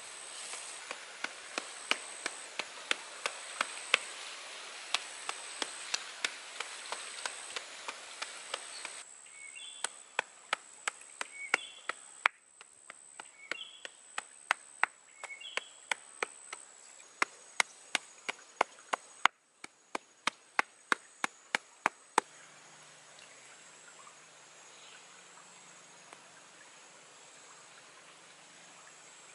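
A hand-held stone knocking against a rock slab in a steady rhythm, about two sharp strikes a second, as something is pounded into a dark grit. The knocking stops for the last several seconds, leaving a steady high insect buzz.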